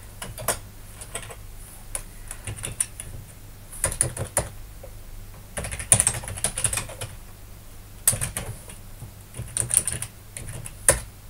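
Typing on a computer keyboard: bursts of keystrokes with short pauses between them.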